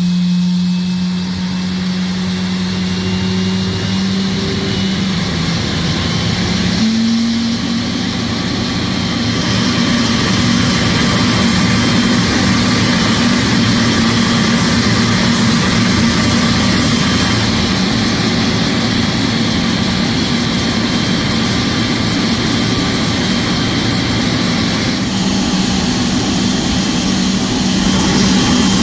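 GE90 turbofan engine of a Boeing 777 during its start: a steady low hum, a step up in pitch about seven seconds in, then a loud, even rushing noise that builds from about nine seconds and holds steady as the engine comes up to speed.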